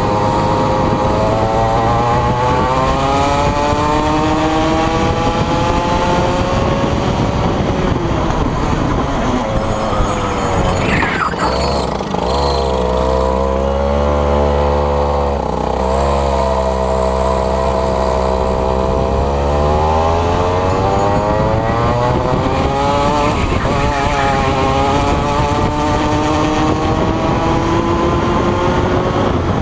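Rotax Max kart's two-stroke engine heard on board at racing speed. Its pitch sags as the driver lifts off for corners and climbs again under acceleration, dropping lowest about twelve to sixteen seconds in before rising steadily.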